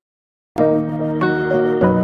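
Background music: silence for about half a second, then a new track starts abruptly with held chords, a new note or chord coming in about every half second.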